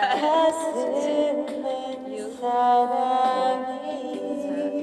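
A woman singing a Korean song into a handheld microphone, holding long notes with vibrato, with backing music playing underneath.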